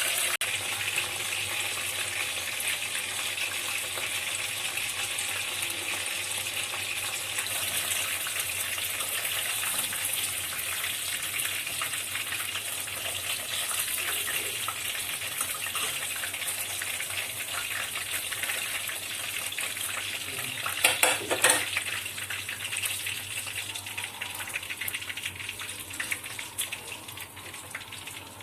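Food sizzling in hot oil in a pan, a steady hiss, with a short clatter of a utensil against the pan about two-thirds of the way through. The sizzle grows fainter near the end.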